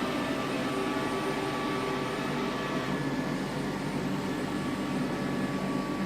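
iClebo Omega robot vacuum cleaner running steadily, its suction motor and brushes giving an even whir with a few steady tones.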